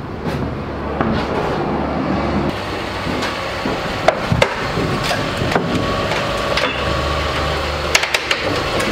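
Scattered knocks and footfalls on the floor of an enclosed trailer, a few sharp ones in the middle and near the end, over the low steady hum of an idling SUV engine.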